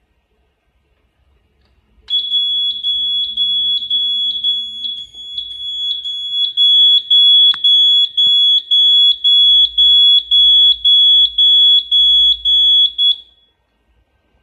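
Built-in piezo buzzer of a Horing Lih AHC-871 fire alarm control panel beeping rapidly, about two shrill beeps a second, for about eleven seconds before it stops. It is the panel's trouble signal for the simulated disconnected circuit in a disconnection test.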